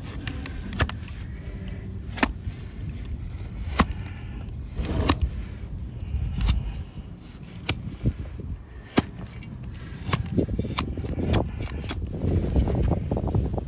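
Hoof-paring blade cutting through a donkey's hoof horn against a wooden stand: a series of sharp, crisp cuts, about one every second or so, over a low rumble.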